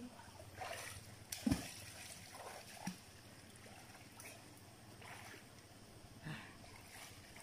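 River water sloshing and splashing lightly in irregular bursts, with a sharp click and a dull thump about a second and a half in.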